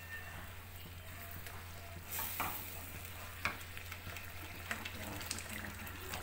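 Thick tomato curry gravy sizzling in a non-stick kadai while a wooden spatula stirs it, with a few light knocks against the pan, the strongest about two seconds in.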